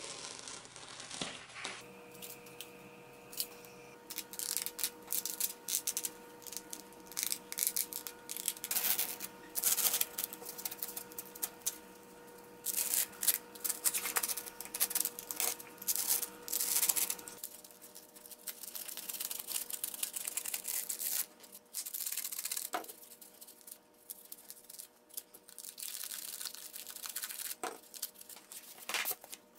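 Utility knife blade scraping and slicing through a sheet of black foam in quick, scratchy strokes, then the cut-out foam pieces being torn and picked out by hand. The strokes come thick and fast at first and grow sparser and quieter after about seventeen seconds.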